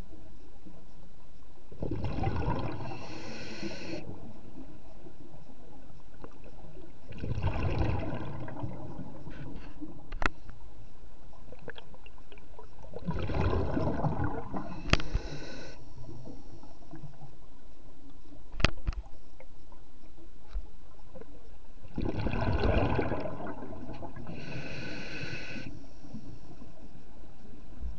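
Scuba diver breathing through a regulator underwater: four breaths spaced several seconds apart, each a rush of bubbles and a hiss. A few sharp clicks fall in between.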